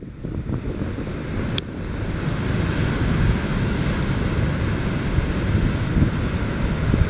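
Heavy surf breaking and washing over a rocky shore in high seas after a storm: a dense, continuous rush of water that builds over the first few seconds. Wind buffets the microphone underneath.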